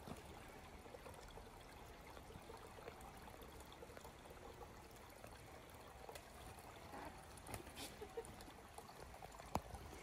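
Faint, steady trickle of a small stream, with a few light knocks in the last few seconds.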